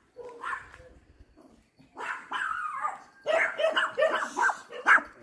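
A dog barking in a quick run of high yaps, starting about two seconds in and coming faster toward the end.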